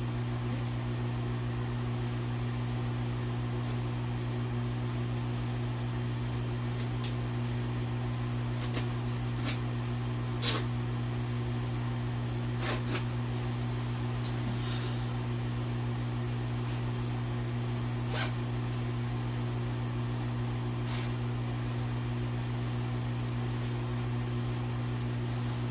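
A steady electric motor hum with a low drone and a few higher tones over it, unchanging, with a few faint clicks and taps here and there.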